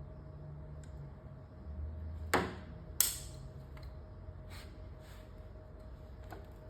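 Handling noises on a work surface: two sharp clicks or knocks a little over halfway in, then a few fainter ticks, over a steady low hum.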